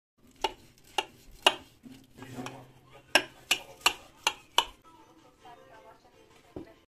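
Metal spatula cutting through a baked casserole in a glass baking dish, its edge clicking sharply against the glass. There are three clicks about half a second apart, then a soft scrape, then five more clicks in quick succession, and one lighter click near the end.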